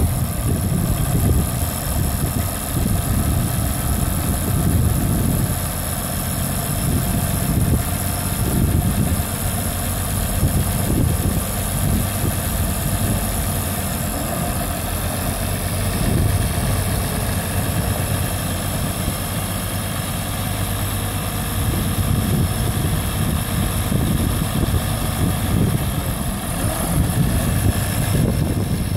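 International Harvester tractor's diesel engine idling steadily, just after starting up, with smoke puffing from the stack as it catches.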